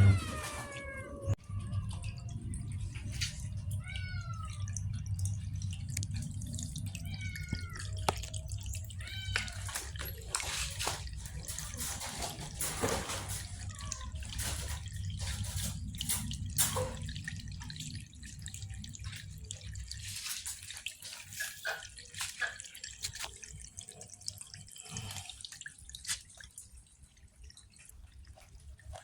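Cats meowing repeatedly in short, gliding calls, with a run of sharp clicks and crackles in the middle, over a low steady hum.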